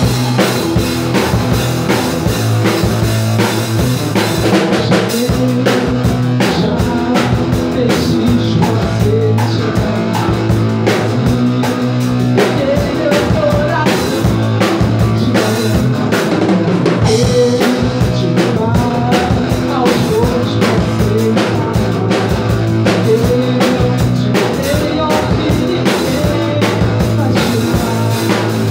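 Rock band playing: a drum kit keeps a steady beat under sustained low bass notes and guitar lines.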